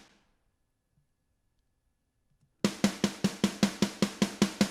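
Snare drum playing back in an even run of rapid hits, about five a second. The hits die away at the start, stop for about two and a half seconds, then start again and carry on.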